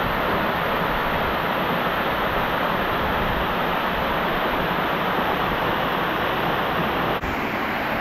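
Waterfall: a steady, even rush of falling water, with a momentary drop near the end.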